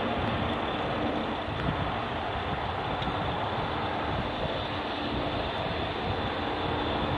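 Jet engines of a twin-engined regional jet rolling along the runway: a steady, dense rushing noise with a thin high whine running through it.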